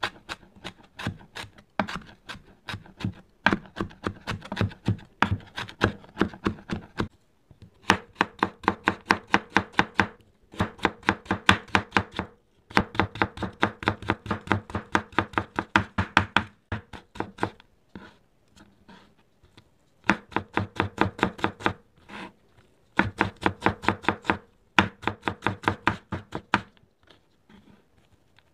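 Chef's knife rapidly chopping on a wooden cutting board, mincing green onion and then carrot: runs of quick strokes about five or six a second, with short pauses between runs.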